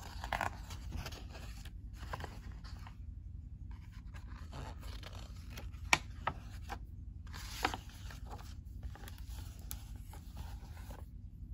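Pages of a picture book being flipped and the book handled, paper rustling in short irregular bursts with a few sharp snaps, the loudest about six seconds in.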